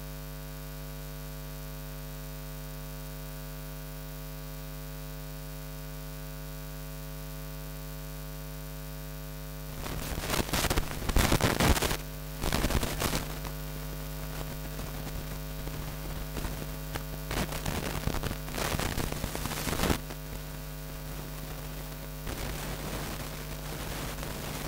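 Steady electrical mains hum. From about ten seconds in, irregular bursts of scraping, rustling noise come and go, loudest in two clusters a few seconds apart.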